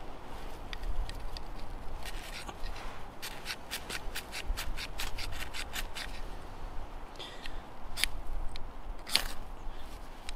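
Short scraping strokes of a striker along a small ferrocerium fire steel, throwing sparks at bark tinder: a quick run of about four strokes a second in the middle, then a few more scattered strokes near the end.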